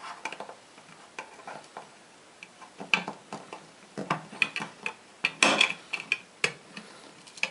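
Swiss Army knife can opener cutting into the lid of a tin can: irregular metal clicks and short scrapes as the blade is levered along the rim, with louder bursts of cutting about three seconds in and again around five to six seconds in.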